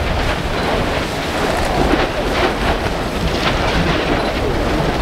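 Slowly advancing basaltic lava flow front crackling, with many short sharp cracks and clinks as its cooled crust breaks and shifts, over a low wind rumble on the microphone.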